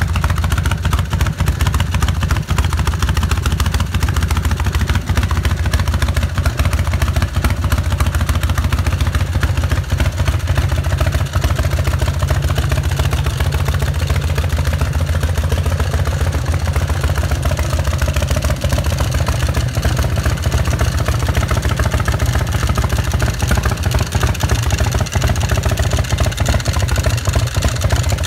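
Custom chopper's air-cooled V-twin engine idling steadily, a deep, even rumble with no revving.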